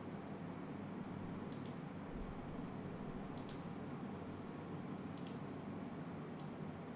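Computer mouse clicking four times, a second or two apart, each click a quick double tick, over a low steady hum.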